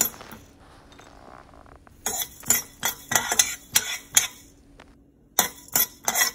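Metal spoon stirring coriander and fenugreek seeds around a dry stainless steel pan as they roast, scraping and clinking on the metal. It is quiet for about two seconds, then comes a run of quick strokes, about four a second, a pause of about a second, and a few more strokes near the end.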